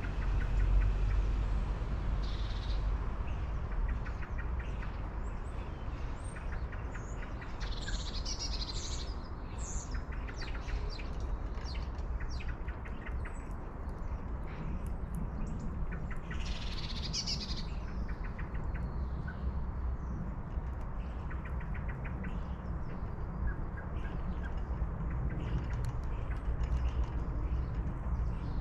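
Small birds chirping in a few short flurries of high calls over a steady low rumble.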